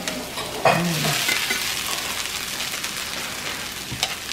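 Steak and vegetables sizzling on a hot griddle, a steady frying hiss, with a brief voice sound about a second in and a sharp click near the end.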